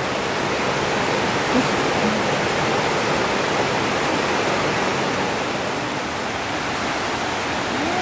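Rushing water of a rocky creek's white-water rapids, a steady, even rush.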